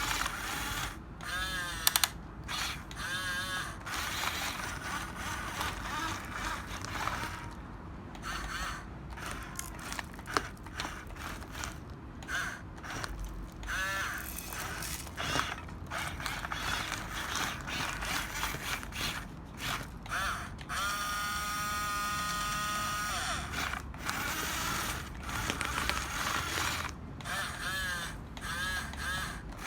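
Small electric motors and plastic gearboxes of a 6-channel RC bulldozer whirring in short runs that start and stop every second or so, the pitch rising and falling with each run. About two-thirds of the way in comes one steady, even whine lasting a couple of seconds.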